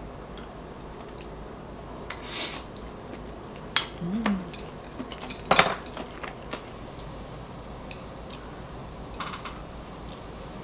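Dishes and utensils clinking and knocking: a handful of short scattered clatters over a steady background hiss, the loudest a little past the middle.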